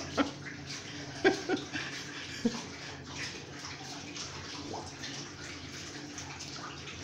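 Water spraying and streaming over a car window, heard from inside the car as a steady wash, with a few short wet licks from a dog at the glass.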